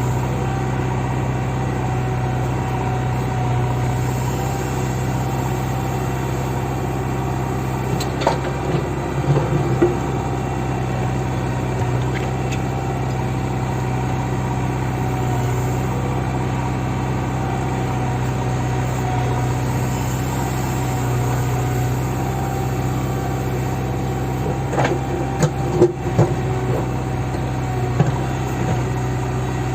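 Diesel engine of a JCB backhoe loader running at a steady speed, with a few short knocks or clanks about eight seconds in and again near the end.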